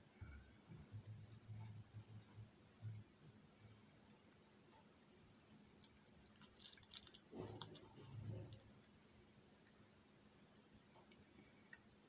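Faint clicks of small metal lock-cylinder parts being handled as the cylinder is taken apart, with scattered soft handling knocks and a quick cluster of clicks about six to seven seconds in.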